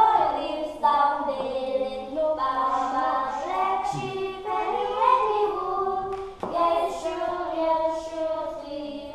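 Children's voices singing unaccompanied, in phrases of held notes with short breaks between them.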